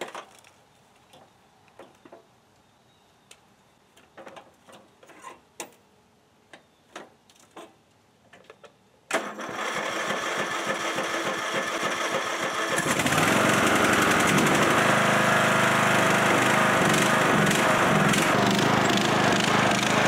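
Small clicks and knocks for about nine seconds, then a riding lawn mower's small petrol engine, jump-started off a dead battery, suddenly turns over and starts. About four seconds later it gets louder and runs steadily at higher speed.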